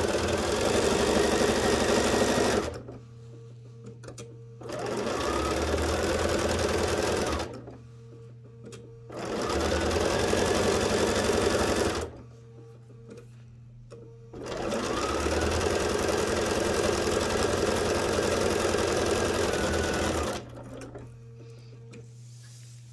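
Bernina domestic sewing machine stitching lace onto padded, quilted fabric in four separate runs with short pauses between. The motor whine rises as each run speeds up and falls as it stops, and the last run is the longest, about six seconds.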